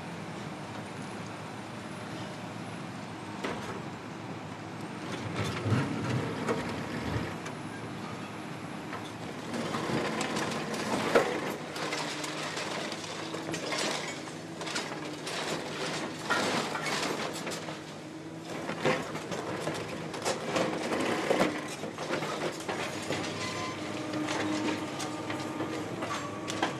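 Heavy hydraulic excavators running steadily while their demolition jaws break up a concrete bridge deck. The concrete cracks and crunches, and chunks and rebar clatter, irregularly at first and then almost continuously from about a third of the way in.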